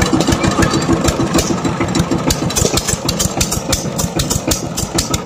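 Two-wheel power tiller's single-cylinder diesel engine running at idle, a steady rapid chugging beat.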